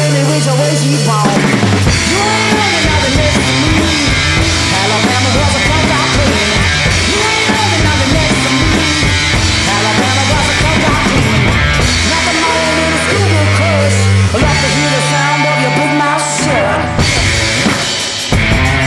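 Garage blues-rock instrumental passage: distorted electric guitar with bending notes over a pounding drum kit and a sustained low bass line.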